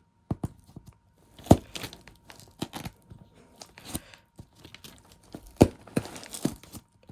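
Old scissors cutting at a package: irregular sharp snips and clacks, the loudest about a second and a half in and again late on, with crinkling and tearing of the wrapping between them.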